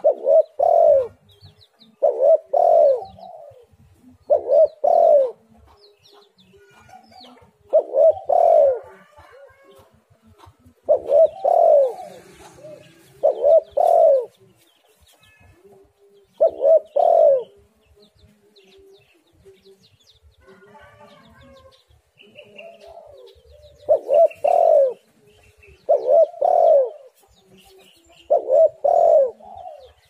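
Spotted dove (tekukur) cooing: about ten short phrases of low, rolling coos, each a second or two apart, with a pause of several seconds just past the middle.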